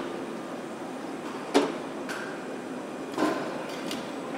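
Factory-hall background noise, steady, with two sharp knocks about a second and a half apart, like metal parts being set down on the shop floor.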